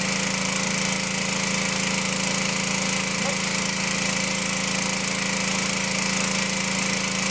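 Single-cylinder four-stroke Briggs and Stratton riding-lawnmower engine running steadily at wide open throttle, heavily loaded by a water brake dynamometer so that its speed is pulled down.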